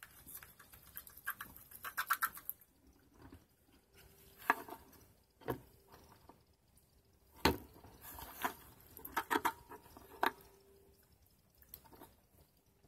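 Slime with foam beads being stirred with a stick in a plastic cup: wet, sticky squelching in irregular spurts, with a few sharp taps of the stick against the cup.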